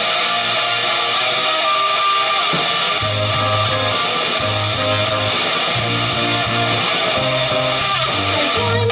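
Live rock band playing: strummed electric guitar chords over a bass guitar line. The bass notes come in heavier about three seconds in.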